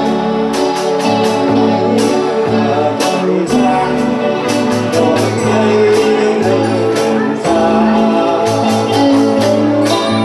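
Live band playing: a singer sings into a microphone over electric guitar and a drum kit keeping a steady beat.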